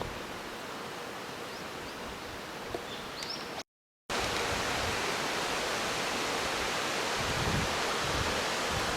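Steady outdoor rushing noise, like running water or wind, with a few short bird chirps in the first half. The sound cuts out completely for a moment just before halfway, then comes back louder.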